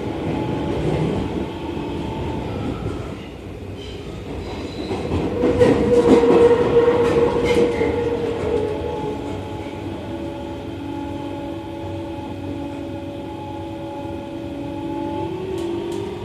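Running sound of a Seibu 30000 series electric train: the steady whine of its traction motors and inverter over wheel rumble on the rails. A louder stretch of rumble and clatter comes in the middle. The whine starts rising in pitch near the end.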